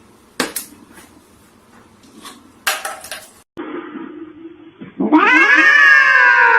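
Two short sharp clatters in the first three seconds, then about five seconds in a cat lets out a loud, drawn-out yowl whose pitch slides slowly down.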